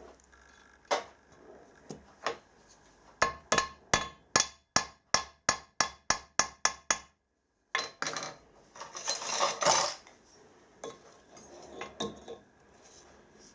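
Hammer tapping a screw extractor into a broken stud in a vice jaw: a quick run of about fourteen sharp metallic strikes, roughly four a second, after a couple of single knocks. A moment of dead silence follows, then a few seconds of metal tool handling and clinks.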